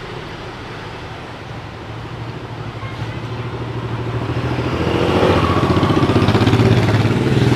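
A road vehicle's engine running as it comes up and passes close by, growing steadily louder over several seconds with a pulsing low hum.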